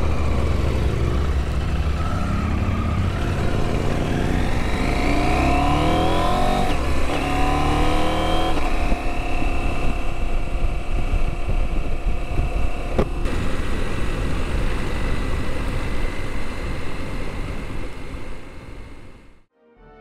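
Motorcycle accelerating up through the gears: the engine pitch climbs in about three rising steps. It then holds a steady cruise with wind rumbling on the microphone, and the sound cuts off near the end.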